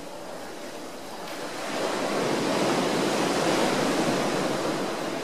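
Ocean surf on a sandy beach: a wave swells into a rushing wash about two seconds in, then eases off.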